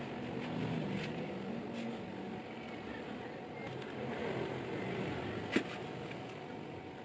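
Leather edge beveler shaving along the edge of a stitched leather wallet panel: a soft, steady scraping as thin curls of leather peel off, with a sharp click about five and a half seconds in.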